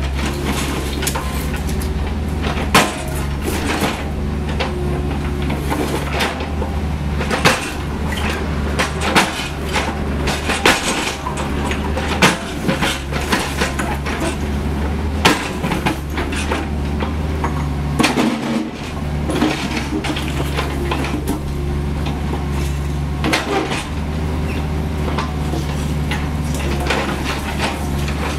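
CAT 304E CR mini excavator's diesel engine running steadily under hydraulic load, with irregular sharp clunks and knocks as its steel bucket strikes and shifts broken concrete slabs. The engine dips briefly about two-thirds of the way through.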